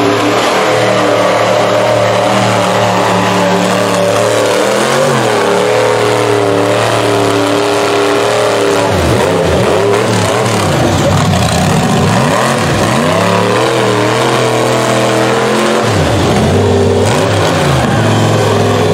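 Rock bouncer buggy's engine revving hard while it climbs over rocks, the pitch repeatedly rising and falling.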